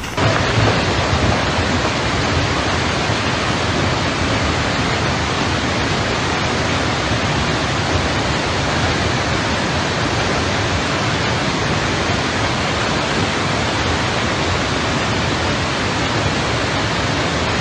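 A loud, steady rushing noise with no distinct strikes or tones, starting abruptly.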